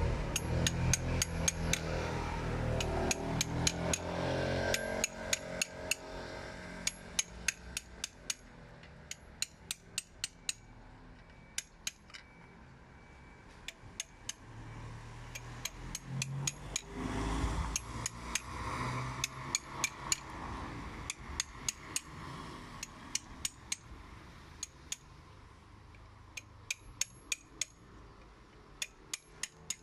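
Sharp metallic clicks in short runs from hand-tool work while new ignition coils are fitted to a car engine, with a low hum that fades out within the first few seconds.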